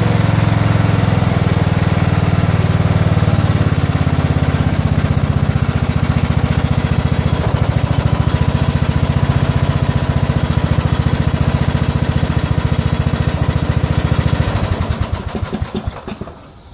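Briggs & Stratton 14.5 hp Intek single-cylinder engine on a riding mower running steadily, warming up after a cold start. About fourteen seconds in it is shut off and its firing slows and dies away over a couple of seconds as the engine coasts to a stop.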